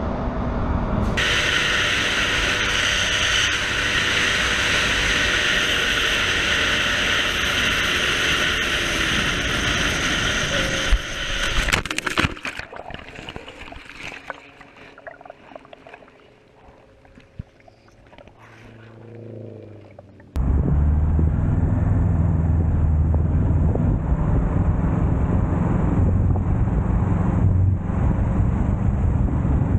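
Motorcycle riding at speed, engine and heavy wind rush on a helmet microphone, ending about a third of the way through in a crash: a few sharp knocks, then the rush dies away to a much quieter, uneven stretch. About two-thirds of the way in, another motorcycle's engine and road noise start abruptly, riding through traffic.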